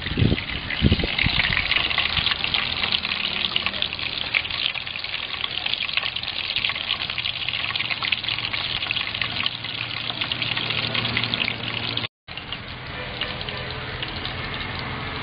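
Whole crab deep-frying in a pot of hot oil: a steady crackling sizzle made of many tiny pops, after a couple of low thumps at the start. It cuts off suddenly about twelve seconds in, and a quieter steady background with a low hum follows.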